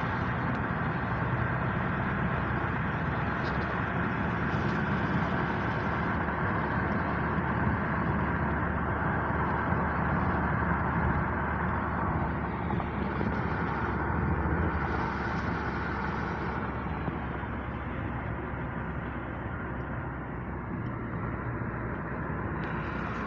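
A motor vehicle running steadily, engine and road noise continuous, a little quieter near the end.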